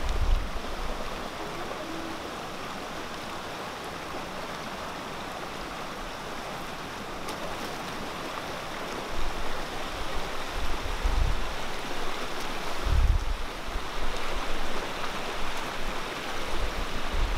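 Fast, shallow floodwater rushing over mud and gravel in a steady wash of water noise. From about nine seconds in, deep low rumbles and thuds come and go on top of it.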